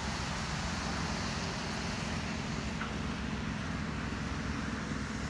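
Steady low rumble and hiss of background noise with no distinct events, of the kind made by distant road traffic.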